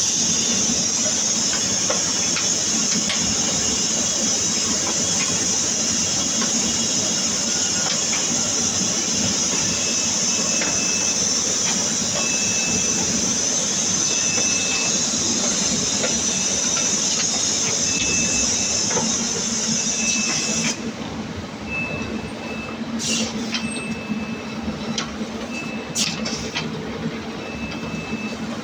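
Rotary PET-bottle washing, filling and capping machine running: a steady machine hum under a loud hiss that stops abruptly about two-thirds of the way through. After that the clicks and clatter of the mechanism stand out, along with a short high tone that repeats about once a second.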